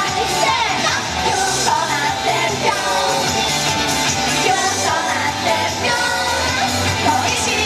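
A woman singing a J-pop idol song live into a microphone over a loud recorded backing track played through a PA system.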